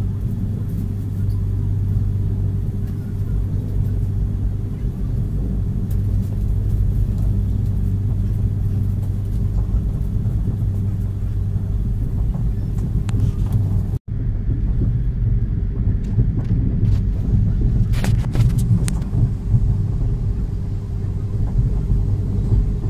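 Tejas Express passenger coach rolling slowly along the track, heard from inside the coach: a steady low rumble of the running gear with a constant hum. It cuts out for an instant partway through, and a few sharp clicks come later.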